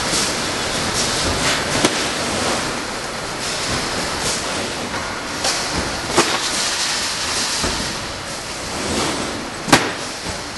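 Automatic tray un-sleever machine running: a steady rushing noise with softer swishes and three sharp clacks, the loudest near the end.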